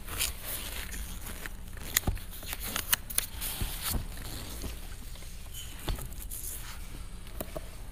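Rustling and handling of papers and a book at a lectern microphone, with a few sharp clicks and knocks scattered through.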